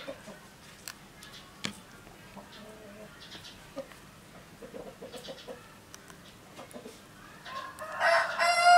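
A rooster crows loudly near the end, one long pitched call. Before it there are faint scattered clicks and rustles of wet frogs being pushed onto bamboo skewers.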